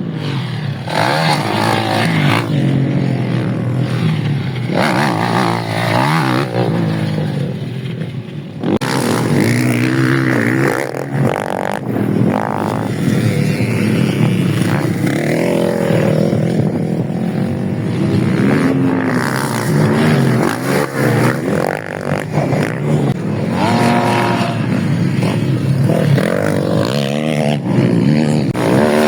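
Motocross dirt bikes on a practice track, their engines revving up and down as they accelerate and back off, several at once.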